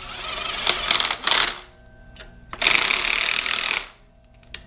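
Cordless power driver running a bolt into the engine in two bursts of about a second each, the bolt going in hard.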